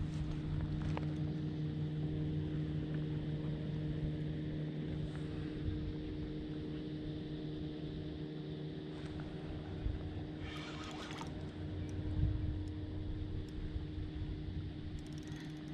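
A steady low hum that holds one pitch throughout, with a brief higher rasp about ten and a half seconds in.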